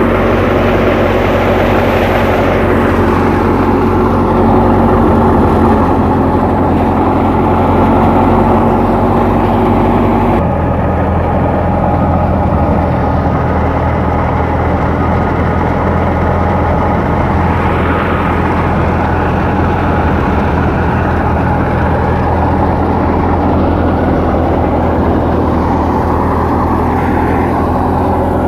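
Massey Ferguson 385 tractor's diesel engine running steadily with heavy machinery noise. About ten seconds in, the sound changes abruptly to a deeper, even drone.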